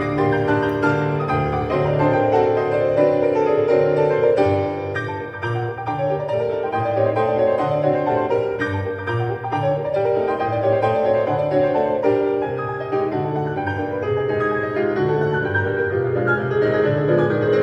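Classical solo piano music played at full volume through a JBL Flip 5 portable Bluetooth speaker, with a steady bass line under a flowing melody.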